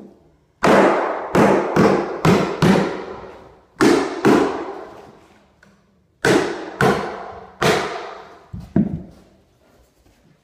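Claw hammer driving carpet tack strip nails into a wooden subfloor: about eleven sharp blows in three bursts, each ringing out briefly in the bare room.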